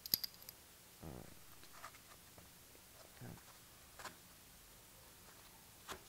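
Handling noise of an assembled dual wheel from a 1/12 scale RC truck, metal wheels turned in the hands and set onto a foam packing tray: a quick cluster of sharp clicks at the start, then scattered faint clicks and scrapes.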